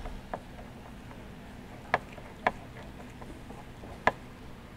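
A few isolated sharp clicks, spaced a second or more apart, from a hand tool tightening the band clamp on a snorkel head, over a faint steady hum.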